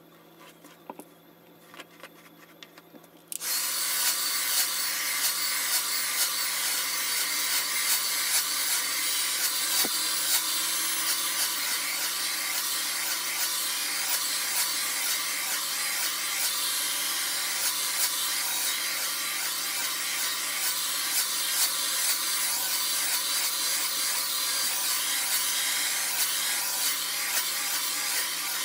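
Handheld hair dryer switched on about three seconds in, then running steadily with a strong rush of blown air as hair is blow-dried straight.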